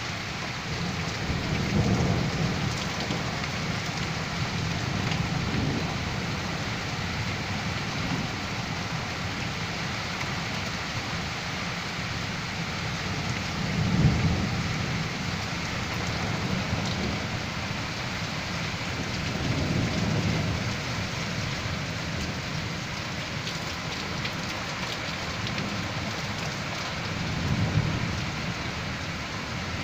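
Heavy rain pouring steadily in a severe windstorm, with deep rumbles swelling up about five times, the strongest about halfway through.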